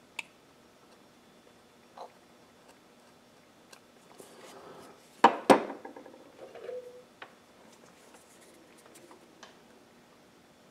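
Handling noise at a wooden workbench as a carving knife is put down and a woodburning pen picked up: two sharp knocks about five seconds in, with a few lighter clicks around them.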